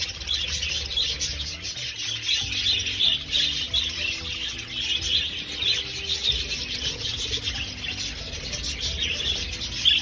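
A large flock of budgerigars chattering and chirping continuously, many overlapping calls forming a dense, unbroken warble.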